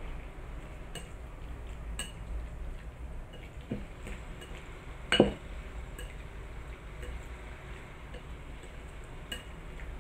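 Chopsticks stirring marinated beef slices in a ceramic bowl, clicking against the bowl now and then, with one louder knock about five seconds in.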